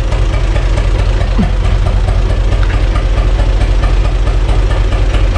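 U445 tractor's diesel engine idling steadily, a low even pulse throughout.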